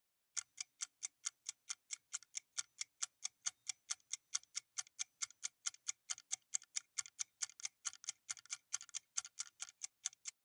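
Countdown timer sound effect: a steady clock-like ticking, about four to five ticks a second, marking the seconds running out to answer a quiz question.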